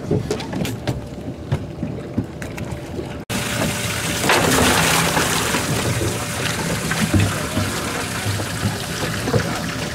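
Rushing water and wind noise aboard a moving fishing boat. About three seconds in, the sound cuts out for an instant and comes back louder.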